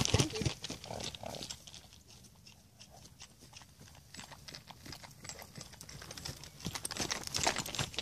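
Hoofbeats of a saddled young Friesian-Appaloosa cross cantering on dry grass in a round pen, growing louder near the end as the horse passes close by.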